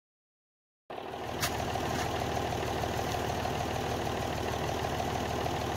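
Silence for about a second, then a tractor engine idling steadily, with a sharp click soon after it comes in.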